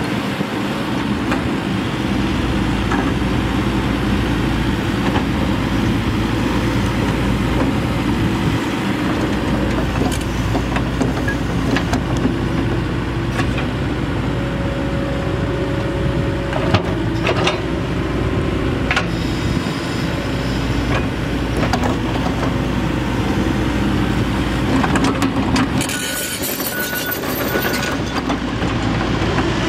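John Deere 135D excavator's Isuzu Tier 3 diesel engine running steadily under load while the machine digs, with scattered metallic clanks from the bucket and attachment.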